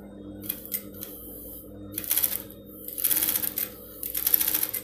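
Industrial single-needle sewing machine stitching in about four short bursts of rapid clatter, the last two longest, as the seam is locked with a backstitch.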